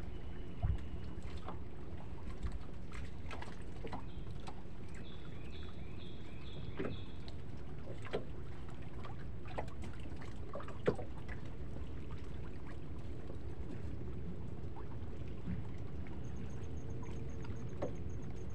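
Steady low rumble of a small fishing boat sitting on the water, with scattered light knocks and ticks. A short run of high repeated chirps comes about five seconds in, and a faint fast high pulsing near the end.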